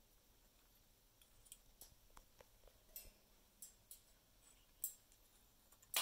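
Faint, scattered clicks and taps of an Amazon parrot handling a small wooden toy with its beak and feet on a wire cage, with a sharper tap just before five seconds and another at the very end.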